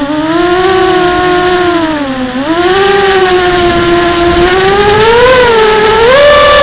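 Quadcopter's DYS 2204 1960 KV brushless motors on 4S with 5045 bullnose props whining in flight, the pitch following the throttle. It dips about two seconds in, rises again around five seconds, then steps up to a higher steady note near the end.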